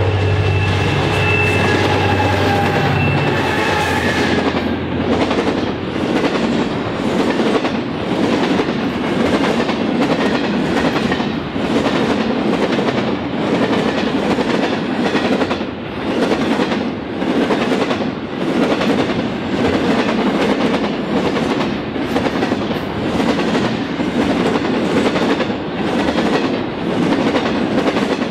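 EMD-powered diesel freight locomotives passing close by, working hard up a 1 in 50 grade; their low engine drone drops away about four seconds in. Container wagons then roll past, with a steady rhythmic clickety-clack of wheels over rail joints about once a second.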